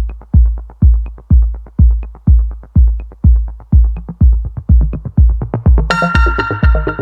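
Electronic dance music with a steady, heavy kick drum about twice a second; bright synth chords come in about six seconds in.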